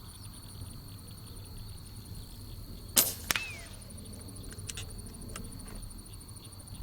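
A single unsuppressed shot from an FX Streamline .25-calibre PCP air rifle at full power: one sharp crack about three seconds in, followed by a fainter second crack about a third of a second later. Insects buzz steadily throughout.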